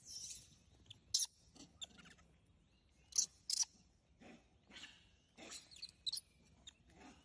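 Short, sharp, high-pitched chirping calls: a loud one about a second in, two close together around three seconds in, and a pair near six seconds, with fainter chirps between.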